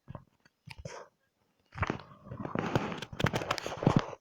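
Close crackling and crunching noise with many sharp clicks, sparse at first and then dense and continuous from about two seconds in.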